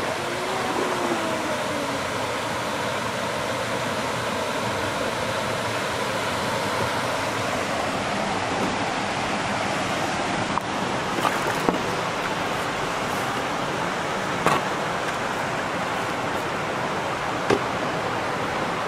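Steady rushing of water cascading through the closed upper gate of a canal lock into the lock chamber, with a few light knocks in the second half.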